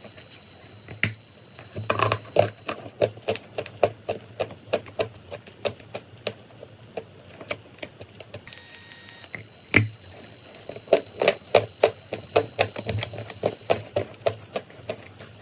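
Chalk and clay crunching in quick, irregular sharp cracks, a few a second, in two runs with a quieter pause in the middle.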